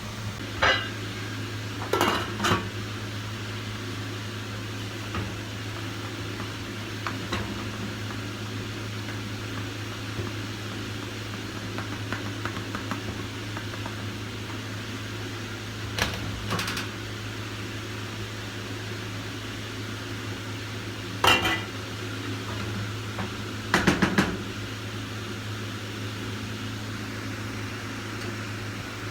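Cookware and utensils clinking now and then, about six sharp ringing knocks of metal or dishes with the loudest near the end, over a steady low hum like a kitchen fan or extractor.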